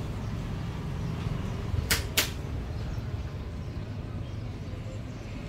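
Two sharp clicks about a third of a second apart, about two seconds in, over a steady low background hum.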